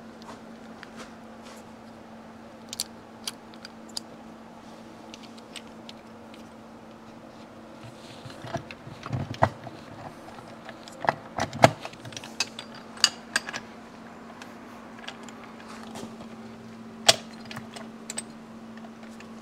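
Steel transmission gears and shafts of a Yamaha AT2 125 two-stroke clinking and clicking against each other and against the aluminium crankcase as the gear clusters are meshed and fitted by hand. The clicks are scattered, busiest from about eight to fourteen seconds in, with one more sharp clink near the end, over a steady low hum.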